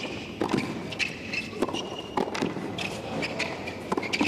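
Tennis rally on a hard court: a quick run of sharp racquet hits and ball bounces, with shoes squeaking on the court surface between them.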